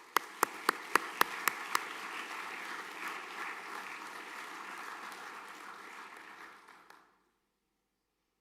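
Audience applauding: a few sharp claps about four a second stand out at first, the clapping fills out into general applause, then dies away about seven seconds in.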